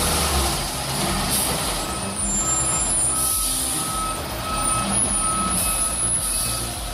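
Heavy machine's diesel engine running under load, with a reversing alarm beeping at an even pace from about two seconds in.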